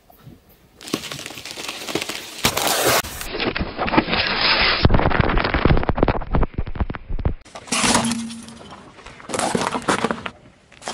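A car tyre rolling over and crushing objects in quick succession, with sharp cracking and crunching. First a watermelon splits, then a row of aluminium soda cans crunches and bursts, then plastic hair curlers crack.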